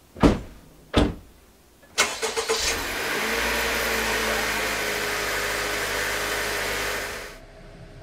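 Two heavy thumps in the first second, the Honda CR-V's door shutting. About two seconds in, the engine starts, briefly flares, then settles into a steady running sound that cuts off suddenly near the end.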